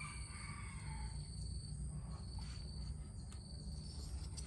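Background insects, crickets, chirring steadily at a high pitch over a low rumble, with a few faint small clicks.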